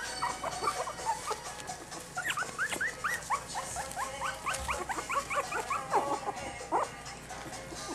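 A litter of three-week-old Shih Tzu × Bichon-Maltese cross puppies squeaking and whimpering, many short high-pitched cries in quick succession, thickest from about two seconds in. Music plays underneath.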